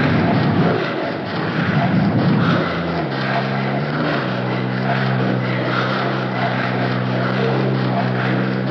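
Experimental noise music from a 1990 cassette. A dense, rumbling wash of noise gives way, about three seconds in, to a steady low drone of several held tones over a grainy hiss.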